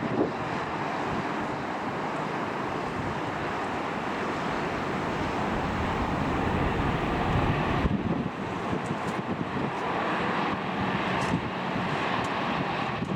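Jet airliner engines running at a steady, heavy rumble, building slightly before dropping suddenly about eight seconds in, with strong wind buffeting the microphone.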